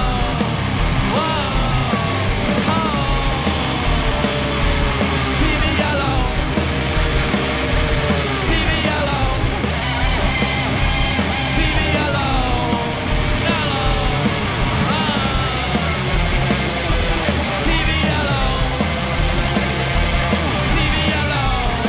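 Heavy, distorted rock band playing live: guitars, bass and drums, with high wailing notes sliding up and down over them.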